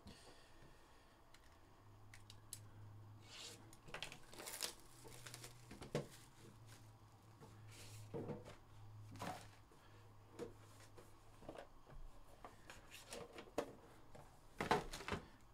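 Faint scrapes, clicks and tearing as a sealed Panini Immaculate football card box is handled, slid and opened. A low steady hum sits underneath for the first two-thirds.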